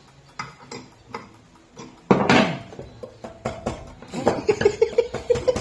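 Metal tools and parts clinking and knocking, with one louder metallic knock about two seconds in and a run of quick ticks near the end.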